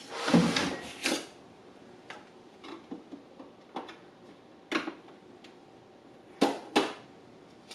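Hard plastic parts of a Brother SE700 sewing and embroidery machine being handled: a short rustle and clatter at the start, scattered light clicks, and two sharp knocks in quick succession near the end.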